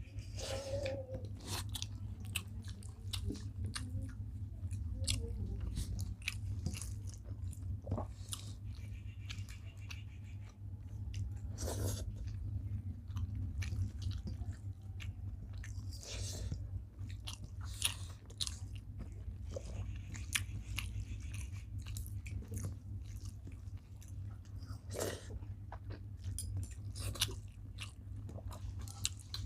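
Close-up mouth sounds of people eating rice and vegetable curries: chewing with irregular sharp clicks and smacks, over a steady low hum.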